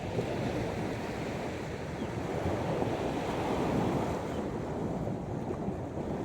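Sea waves washing onto a sandy beach, a wave swelling and breaking about three to four seconds in, with wind rumbling on the microphone.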